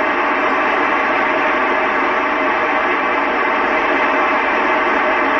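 FM amateur radio receiver tuned to the ISS 2 m downlink giving loud, steady static hiss: the space station's carrier has dropped between the astronaut's transmissions, leaving the open receiver on noise.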